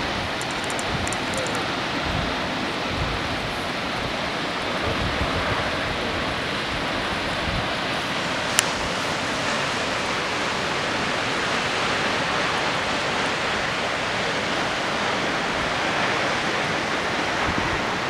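Steady rushing of Mutarazi Falls mixed with wind, with low gusts buffeting the microphone in the first few seconds and a single sharp click about eight and a half seconds in.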